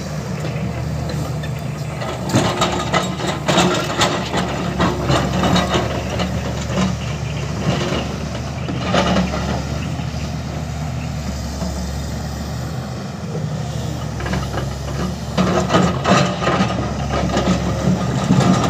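SANY SY350 crawler excavator's diesel engine running steadily, with spells of scraping and clattering as the bucket digs into rocky soil: about two seconds in, around eight seconds in, and again from about fifteen seconds on.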